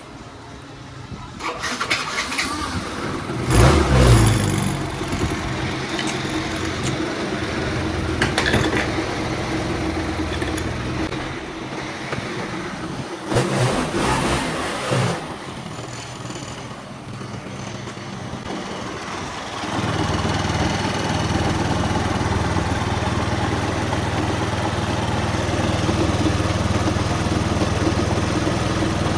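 Yamaha RS100 scooter engine started and revved a few times in short bursts, then settling into steady running about two-thirds of the way through. Its abnormal noise comes from a damaged drive belt rather than worn variator pulleys.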